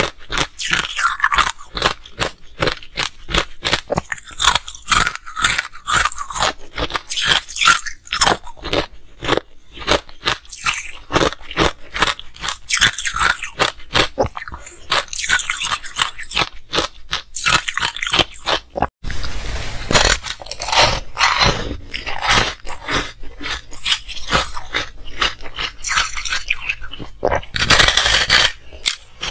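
Close-miked crunching and chewing of ice. First come rapid bites into ice chunks coated in green powder. After a short break about two-thirds of the way through, teeth bite into a frozen, milky, star-shaped block of ice with pomegranate seeds, with a loud crunch near the end.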